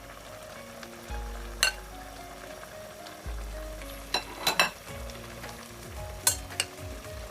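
A few sharp clinks of metal utensils against cookware, in a cluster of three about four seconds in and two more near the end, over a steady hiss from the stove as hot broth is ladled over flatbread. Soft background music with short held notes plays underneath.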